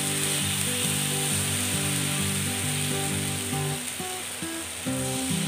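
Thin rava dosa batter sizzling on a hot non-stick dosa pan as it is ladled on, with background music playing.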